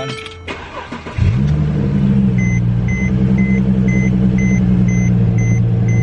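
2010 Mercedes-Benz C300's V6 engine starting about a second in, flaring briefly and then settling into a steady, smooth idle with freshly replaced spark plugs that have cured its rough idle. From a couple of seconds in, a car warning chime beeps about twice a second over the idle.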